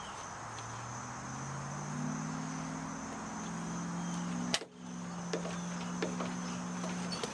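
Crickets trilling steadily, with a low steady hum that shifts pitch in steps. A sharp click comes about four and a half seconds in, followed by a few fainter clicks.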